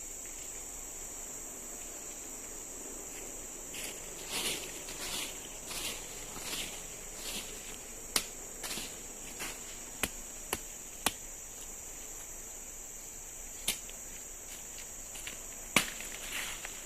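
Forest insects droning steadily at a high pitch. From about four seconds in, a run of soft rustles comes roughly every two-thirds of a second, then half a dozen sharp knocks, the loudest near the end.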